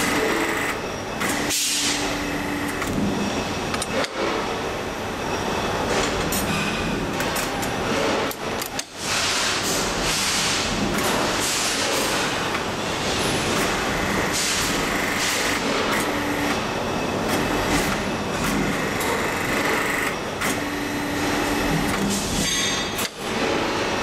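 Metalworking press machinery running loudly and steadily, with a short hum and a high whine that come and go every few seconds and a few brief drop-outs.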